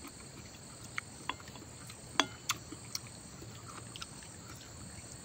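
Eating sounds: a handful of short, sharp wet clicks and smacks, the loudest a little over two seconds in, over a steady high drone of insects.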